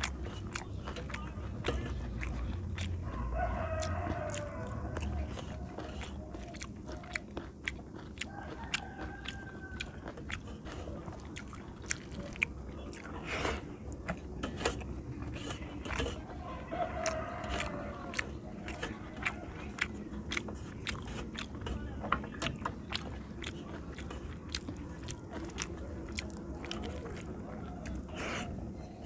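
A person eating rice and fish curry by hand, close to the microphone: wet chewing and lip smacking with many small sharp mouth clicks, and fingers working rice on a brass plate.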